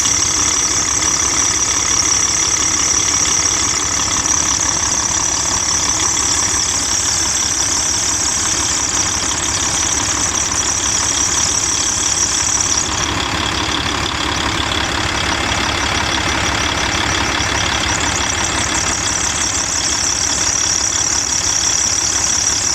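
Volvo D12 diesel engine idling with a loud, high-pitched whistle from the accessory drive belt, which the owner puts down to the belt rubbing against a pulley. The whistle cuts off abruptly about halfway through and comes back a few seconds later, while the engine keeps running.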